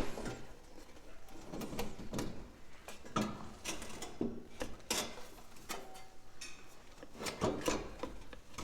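Irregular metal clunks, knocks and scraping as a small 5 hp go-kart engine is set down and shuffled into place on the kart's engine mount.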